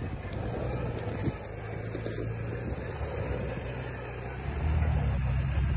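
Engine of an off-road 4x4 running under load as a red Toyota FJ Cruiser is dragged through deep snow on a tow strap, a low steady hum that grows louder about four and a half seconds in.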